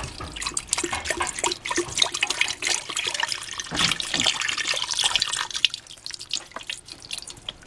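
Beef broth being poured into a cooking pot: a steady splashing stream of liquid that thins out near the end.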